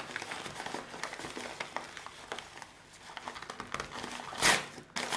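Paper bubble mailer crinkling and rustling under the hands as it is handled and smoothed, in a run of small irregular crackles, with a louder crinkle about four and a half seconds in.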